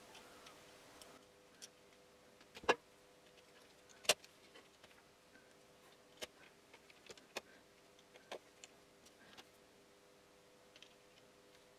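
Scattered light clicks and taps of small plastic parts and a tool being handled while a Logitech G700 wireless mouse is reassembled, with two louder clicks about three and four seconds in. A faint steady hum runs underneath.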